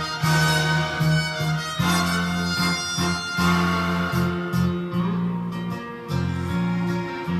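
Instrumental introduction of an enka song: backing music with guitar and strings over a steady bass line, no singing.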